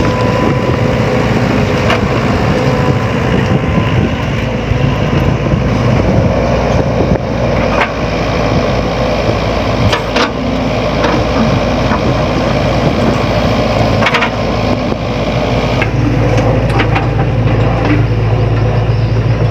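Sany SY75C excavator's diesel engine running steadily at working revs, with scattered sharp clicks and cracks of gravel and stones knocking against the bucket as it digs.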